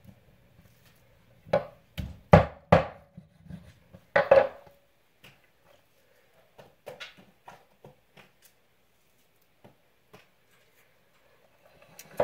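Chopping on a wooden butcher block while raw chicken is cut up: about five heavy knocks between one and a half and four and a half seconds in, then scattered light taps and clicks.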